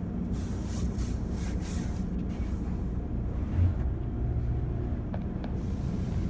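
Steady low rumble heard inside a car's cabin on a car-wash conveyor, with hissing bursts of an attendant's hand-held pre-soak spray wand hitting the car, stopping and starting again near the end. A single dull thump about three and a half seconds in.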